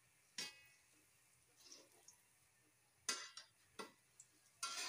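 Metal tongs clinking against a metal wok as frying saba banana halves are turned, a few sharp clicks spaced across a couple of seconds, some with a short metallic ring.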